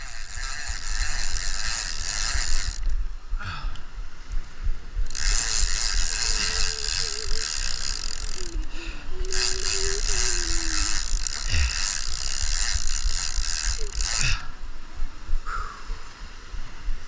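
Large surf-fishing reel ratcheting in long runs of rapid clicking with short pauses between them, as a hooked shark is fought on the line. A steady low rumble of wind and surf lies underneath.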